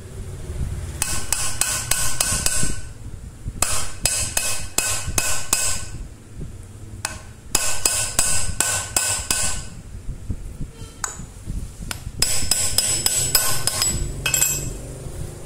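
Sharp metal-on-metal tapping that drives a 6201 ball bearing into the head housing of a hand drill: four bouts of rapid, ringing strikes, each lasting about two seconds, with short pauses between them.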